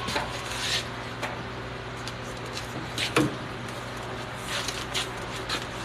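Steady low hum of workshop equipment, with a few scattered knocks and clicks of things being handled; the loudest knock is about three seconds in.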